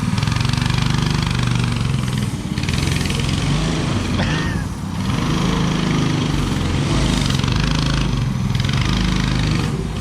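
Go-kart's small engine running, revving up and down as the kart is driven, easing off briefly a few times.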